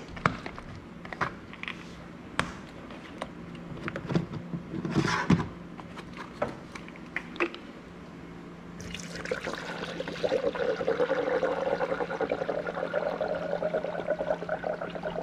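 A few clicks and knocks of handling, then from about nine seconds in coolant being poured steadily into the car's cooling system to refill it after the thermostat change. A steady low hum runs underneath.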